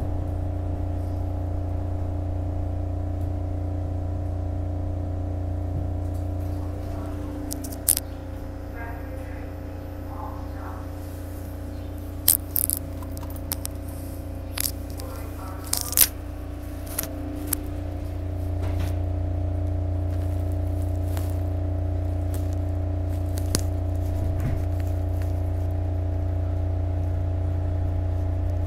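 Steady electrical hum inside a SEPTA Market-Frankford Line Kawasaki M-4 rapid-transit car. It eases a little about a quarter of the way in and comes back up about two-thirds through. Several sharp clicks and knocks in the middle.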